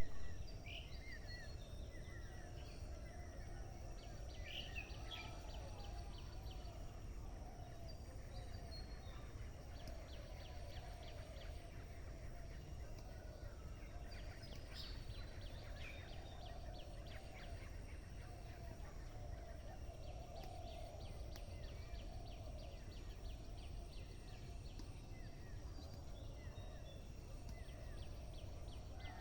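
Morning birdsong: many birds chirping, with short rising and falling whistles and quick rattling trills, over a continuous lower chattering and a steady low rumble.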